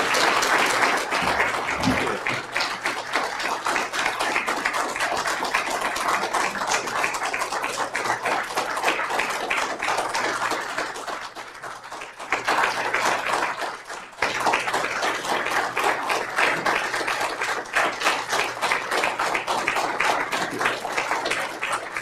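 Audience applauding: a long round of dense clapping that thins about eleven seconds in, then builds up again twice before the end.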